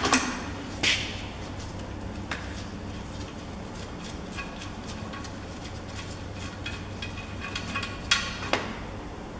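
Light metallic clinks and rattling as the top mount of a Peugeot 5008 strut is seated on the coil spring and turned by hand to line up its tab, with a sharper click about eight seconds in.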